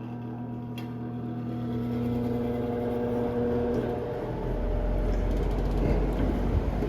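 Vintage ILG box fan's electric motor humming as it spins up, the rush of moving air growing steadily louder. From about halfway, the airflow buffets the microphone with a deep rumble.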